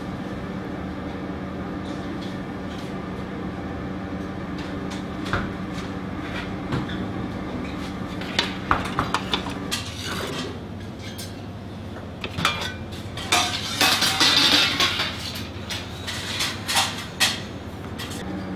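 Light clinks and scrapes of metal plating tools on a steel sheet tray and a ceramic plate, busier from about eight seconds in as a dressed leaf is slid off the tray with an offset spatula, over a steady hum.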